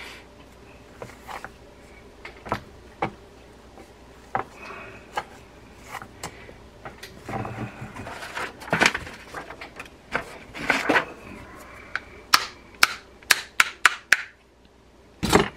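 Small brass reel parts clicking and tapping as they are handled and worked by hand, with handling noise in the middle and a quick run of sharp clicks near the end.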